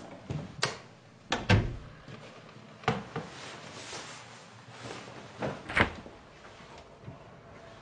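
A series of about half a dozen sharp knocks and clunks, of the kind made by handling doors, drawers or cupboards, the loudest about one and a half seconds in and just before six seconds in, with faint rustling between them.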